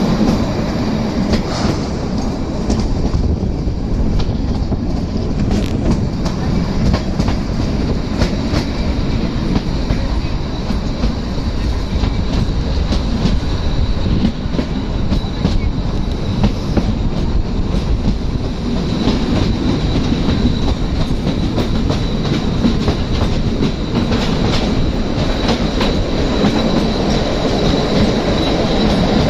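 Kalka–Shimla narrow-gauge toy train running, heard from aboard: a steady rumble with irregular clicks of the wheels on the rails, and a thin high squeal from about twenty seconds in.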